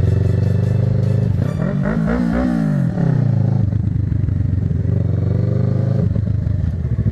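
Motorcycle engine running, revving up and dropping back down about two seconds in, then settling to a steady note.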